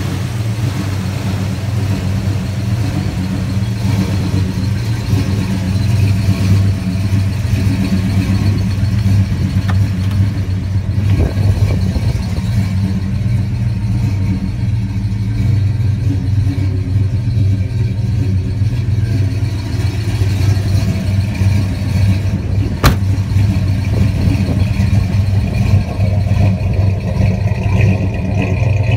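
A 1970 Pontiac GTO Judge's V8 engine idling steadily. A single sharp click comes about three-quarters of the way through.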